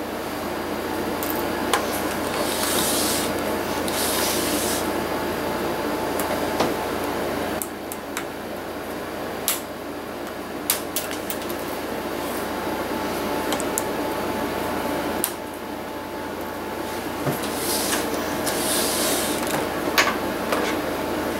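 Hands handling a laptop's display lid, giving scattered sharp clicks and a few brief rubbing scrapes, over a steady mechanical hum.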